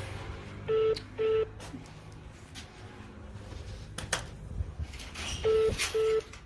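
Telephone beeps over a call on hold: two short steady tones half a second apart, then the same pair again about five seconds later, with a few faint clicks between them.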